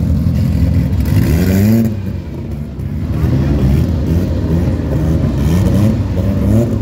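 Volkswagen Gol drag car's engine revving at the start line: one longer rise in pitch about a second in, then a run of short, quick throttle blips that rise and fall.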